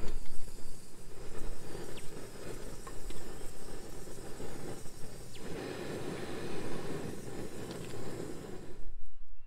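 Portable gas canister stove burning steadily under a pot of water, a steady hissing rush. It stops abruptly near the end.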